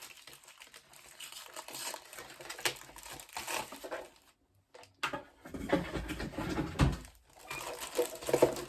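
Rustling and crinkling of packaging with light clicks as the parts of a flat-pack hanging organizer are handled, with a louder stretch of bumps and rustling from about five and a half to seven seconds in.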